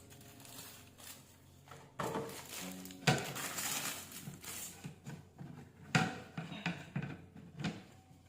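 Household containers and utensils being handled, with a run of knocks and clinks, the loudest about three seconds in and again about six seconds in.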